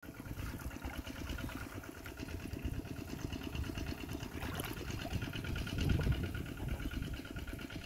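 A small engine running steadily at idle, with an even, rapid pulse.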